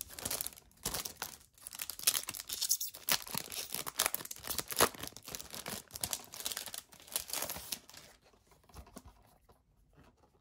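Cellophane shrink-wrap being torn and peeled off a DVD case, crinkling and crackling for about eight seconds, then only a few faint rustles.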